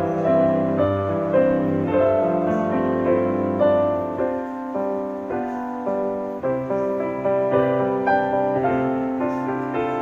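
Background piano music: a melody of held notes over a lower accompaniment.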